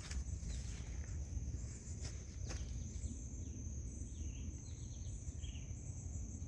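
Outdoor ambience: a steady high insect drone, with faint bird chirps and a low rumble, and a couple of light clicks about two seconds in.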